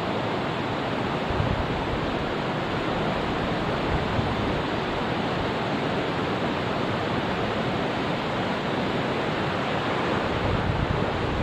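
Steady rush of a mountain stream's flowing water, unbroken throughout, with a few brief low rumbles of wind or handling on the microphone.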